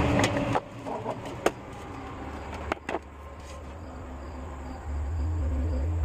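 Water splashing out of a stainless-steel bowl as it is tipped out, ending about half a second in. A few sharp knocks follow, and a low rumble comes in near the end.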